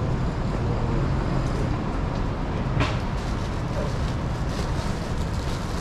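Busy city ambience: a steady low rumble of vehicles with faint voices, and a brief hiss about three seconds in.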